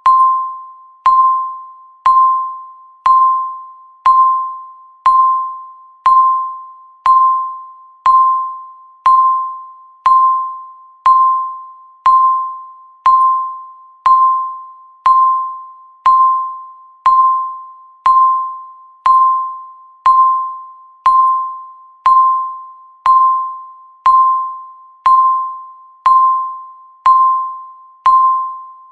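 Countdown timer beeping once every second: a single short, high electronic beep that fades away quickly, repeating evenly.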